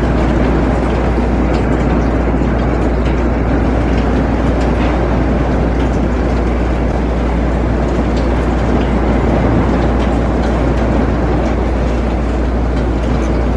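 Heavy downpour of rain, very hard ("súper, súper fuerte"): a loud, steady, dense hiss with a constant low rumble underneath.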